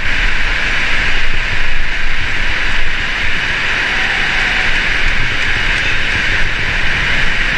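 Heavy rain pouring down: a loud, steady rushing hiss with a low rumble from drops striking the camera.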